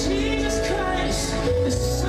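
Live gospel church music with singing over held chords and a steady bass.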